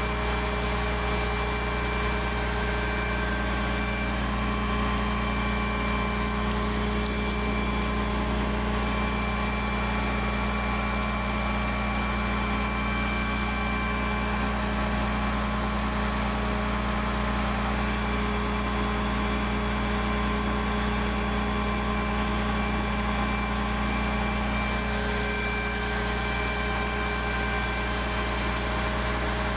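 Hensley Super Auger bulk feed trailer unloading feed: its auger and drive run steadily with an even low hum and a few constant whining tones, as the hopper runs low.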